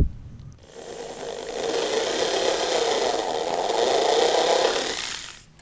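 Corded electric drill boring a shallow pilot hole into a pine tabletop board. It starts about half a second in, runs steadily for about four and a half seconds, then stops.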